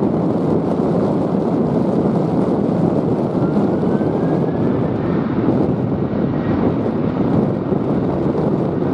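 Strong wind buffeting the microphone in a loud, steady rush, with a passing jet airliner heard faintly under it: a thin engine whine that rises slowly in pitch through the middle.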